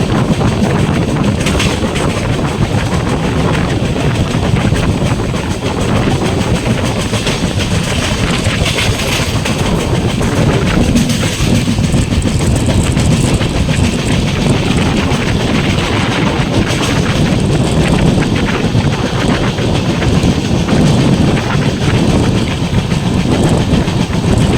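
Wheels of an Indian Railways LHB passenger coach running on the track at speed: a steady rumble filled with dense, irregular rattling clicks.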